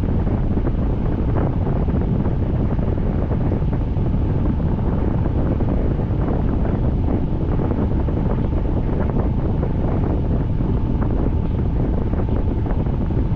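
Steady rush of rain and wind, with wind buffeting the microphone and a patter of many small drop ticks.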